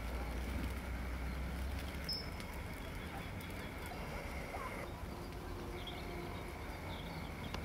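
Outdoor ambience: a steady low rumble and hiss with a few faint bird chirps. A faint steady high tone stops about five seconds in.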